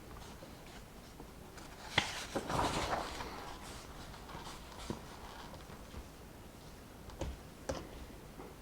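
A page of a book being turned: a sharp click about two seconds in, then a short papery rustle lasting about a second. A few light taps of pen and paper follow near the end.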